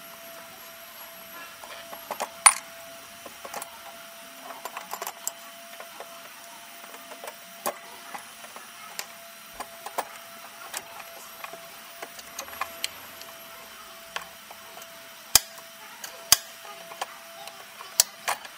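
Irregular clicks, clacks and knocks of hands and tools working loose hoses and fittings in a diesel engine bay. The sharpest clack comes about two and a half seconds in, and a few more come near the end.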